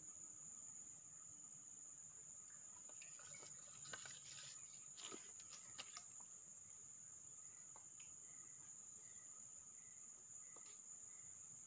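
Faint, steady high-pitched drone of forest insects, with a few soft clicks around the middle.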